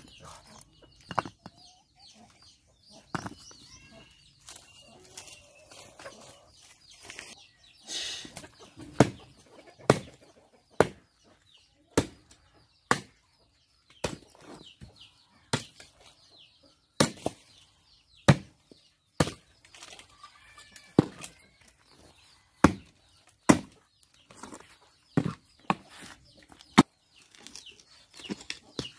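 A long-handled hoe striking and chopping into earth: a series of sharp, separate hits, about one a second for much of the time. Chickens cluck in the background, notably near the start and again around two-thirds of the way through.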